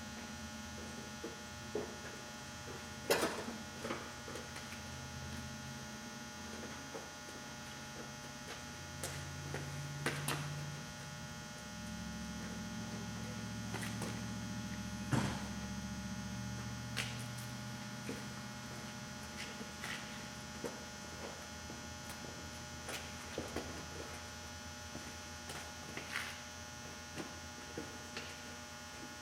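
Steady electrical hum, with a deeper wavering hum swelling in the middle, and scattered sharp clicks and knocks from parts being handled; the loudest knocks come about three seconds in and again about fifteen seconds in.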